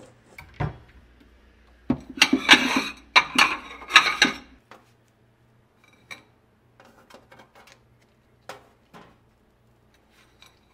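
Metal scraping and clattering on a sheet pan as a flatbread pizza is cut with a pizza cutter and the pieces are lifted off, loudest from about two to four and a half seconds in. A few light taps and clicks follow as the pieces are set on a plate.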